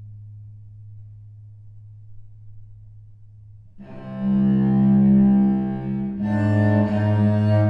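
Solo cello playing slowly. A quiet low note is held, then about halfway in a loud bowed note enters, and it moves down to a lower note near the end.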